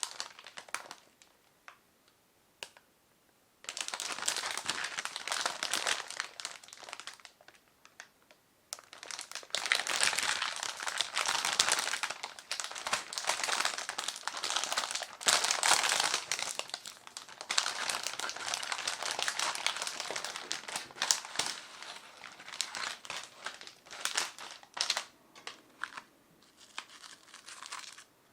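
Frozen ramen packaging being handled and unwrapped, crinkling in long stretches after a few light ticks, with a brief pause about 8 seconds in and separate crackles near the end.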